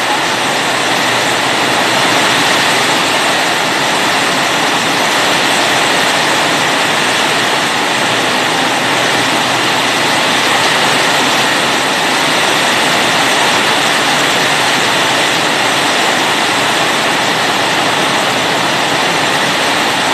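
Typhoon wind and driving heavy rain, a loud, steady rushing noise that does not let up.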